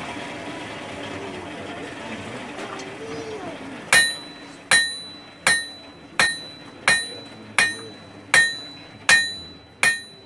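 Blacksmith's hammer striking a red-hot iron bar on an anvil, starting about four seconds in with steady blows roughly every three-quarters of a second, each leaving a bright metallic ring.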